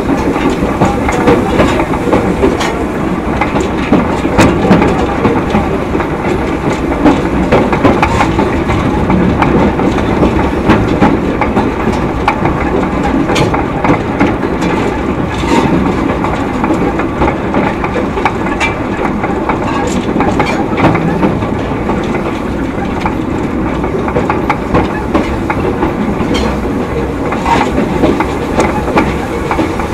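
2 ft narrow-gauge steam train running along the line: a steady rumble of wheels and carriages, with irregular clicks and knocks from the rails.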